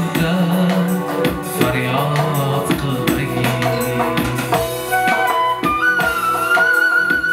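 Live Uzbek folk band: a male voice singing over keyboard and steady frame-drum (doira) strokes with jingles rattling, then about five seconds in the singing stops and a side-blown flute takes up a high, held melody.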